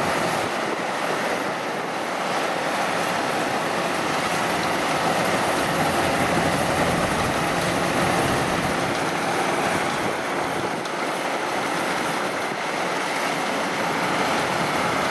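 Tracked rice combine harvester running steadily as it cuts standing rice, its engine and threshing mechanism making a constant mechanical noise.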